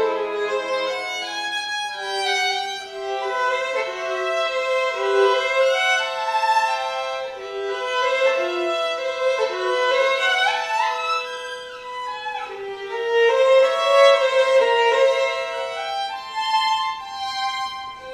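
Violin and a second bowed string instrument playing a slow duet, with held notes sounding together, wavering vibrato and a few sliding shifts in pitch.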